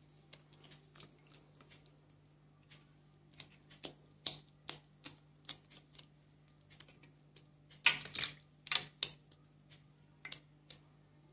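Irregular wet clicks and squelches of hands squeezing and pressing soft lumps of fresh homemade butter over a bowl of ice water, with drips falling back into the water; the loudest cluster comes about eight seconds in. A faint steady low hum runs underneath.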